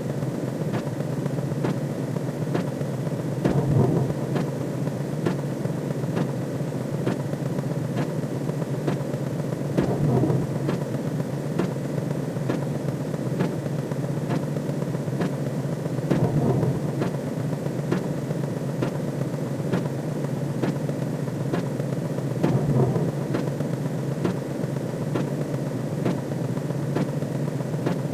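Looping synthesized sound effect: a steady low rumbling drone that swells about every six seconds, with faint ticks at a steady pace.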